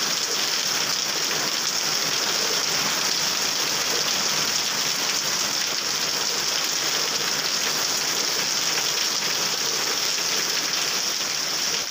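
Heavy rain falling steadily on a puddled road, a dense, even hiss.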